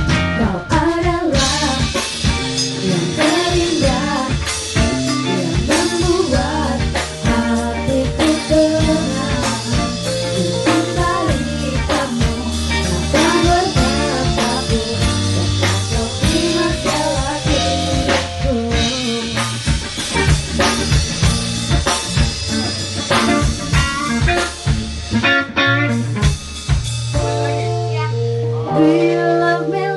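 A woman singing into a microphone over instrumental band backing with drums.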